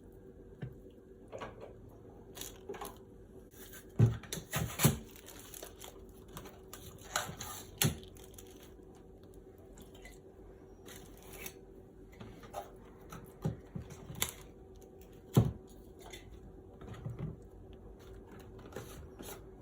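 Raw chicken strips being laid by hand into a slow cooker lined with a plastic liner bag: scattered soft knocks and clunks with crinkling of the plastic, a few sharper knocks among them, over a faint steady hum.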